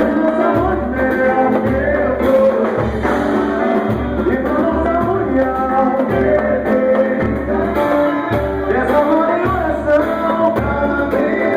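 Music: a romantic Portuguese-language song with a steady bass beat under melodic instrument lines.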